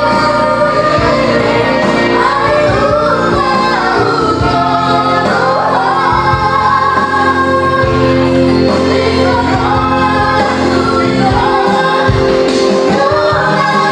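A woman and a man singing a duet into microphones over a PA, with electronic keyboard accompaniment; the woman's voice is high and shrill, holding long notes.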